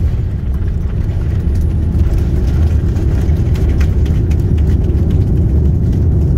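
Jet airliner on the runway after landing, heard from inside the cabin: a loud, steady low rumble of the engines and wheels.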